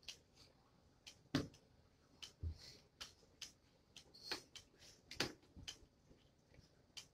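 Scattered light clicks and taps, with a few soft knocks, from small plastic craft pieces and bottles being handled on a table.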